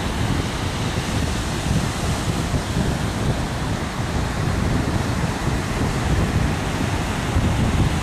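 Strong wind buffeting the microphone in loud, uneven rumbles, over the steady wash of Pacific surf breaking on the beach.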